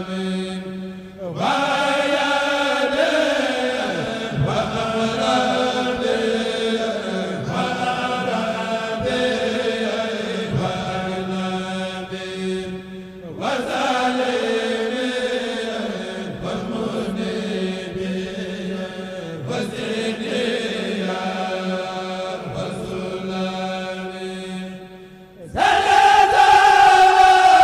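Men of a Mouride kourel chanting a qasida over a sound system, in long held phrases of about twelve seconds each with short breaths between them. A louder phrase comes in near the end.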